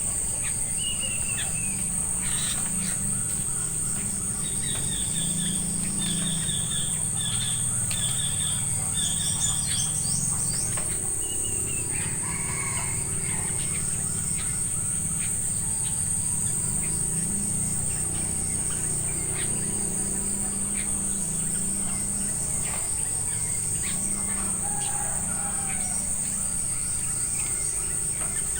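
Steady, high-pitched drone of insects, with birds chirping over it, including a quick run of five repeated notes near the middle.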